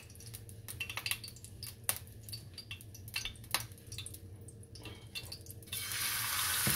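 Scattered light clicks, then near the end a block of raw ground beef laid into a frying pan of hot oil sets off a sudden, steady sizzle that is the loudest sound.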